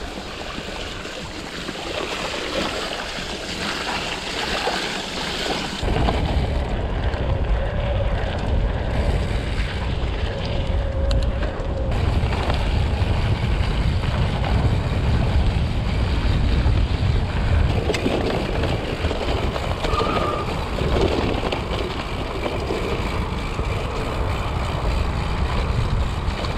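A mountain bike rolling along a dirt trail, its tyre noise under wind buffeting the microphone. The low wind rumble comes in strongly about six seconds in and stays.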